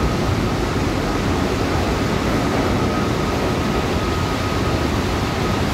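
Steady rumble of New York City subway trains echoing through an underground station, with a faint high squeal that comes and goes.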